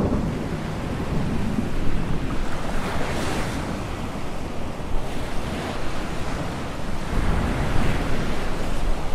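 Sea waves and wind in a continuous rush that swells and eases a few times.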